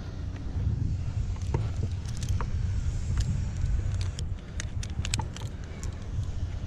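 An engine running steadily with a low rumble, with scattered light clicks and rattles over it.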